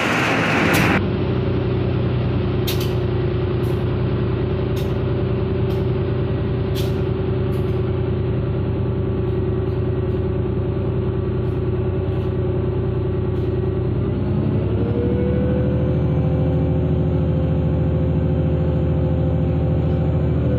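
Diesel railcar engine running under the passenger car as the train pulls away, after a short burst of hiss in the first second. A few light clicks come about once a second between roughly three and eight seconds in. About fourteen seconds in the engine note rises and a whine joins it as the engine takes more throttle.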